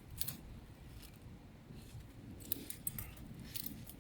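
Faint handling sounds from the watch being picked up and moved: a few light clicks, with a cluster about two and a half seconds in and another shortly before the end.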